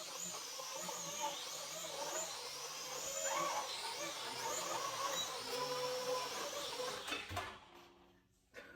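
Snaptain S5C toy quadcopter drone's motors and propellers whirring, the pitch wavering up and down; they stop about seven seconds in, then a short click.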